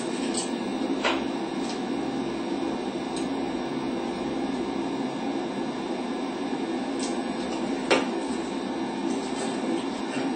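Steady hum and hiss of a high-wattage soldering gun held on the rectifier terminals of a Ford 6G alternator while soldering the stator leads, with a few light clicks and one sharper tap about eight seconds in.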